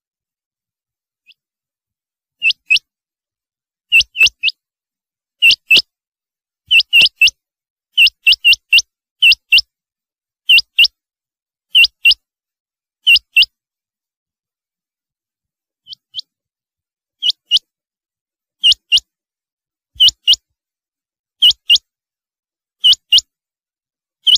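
Rain quail calling: short, sharp, high notes, mostly in doubled pairs, repeated about every second and a half over a silent background, with a pause of a few seconds in the middle.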